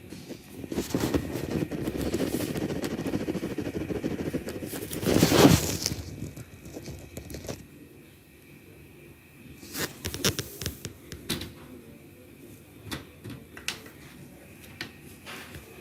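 Hands working on a laser printer drum unit: a long stretch of rubbing and scraping on plastic parts, one louder scrape about five seconds in, then scattered light clicks.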